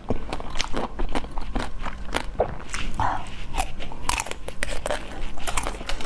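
Close-miked biting, crunching and chewing of frozen blue treats bitten off a wooden skewer, with many quick crackly crunches.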